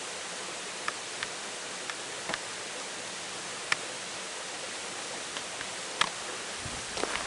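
Steady rushing of a mountain stream's flowing water, with a few scattered sharp ticks; footsteps begin near the end.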